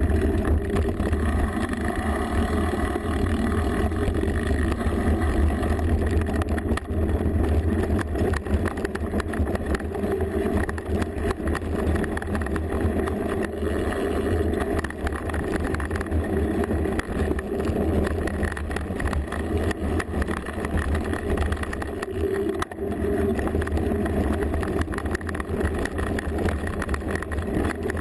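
Mountain bike descending a rough trail, heard through a rear-mounted GoPro: a steady low rumble of wind and frame vibration, with many small rattles and knocks from the bike going over the ground.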